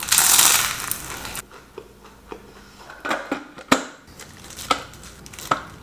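A loud crunch lasting about a second as teeth bite into a crispy deep-fried roll. Then several sharp plastic clicks and knocks as the clear plastic bowl of a Hamilton Beach food processor is set and locked onto its base.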